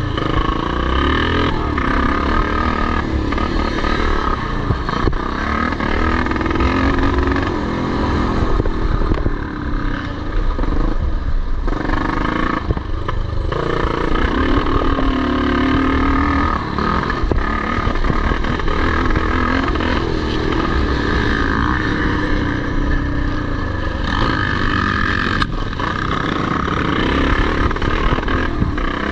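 Several vintage motocross motorcycles racing, their engines revving up and down in pitch as they accelerate and shift, with the sounds of more than one bike overlapping.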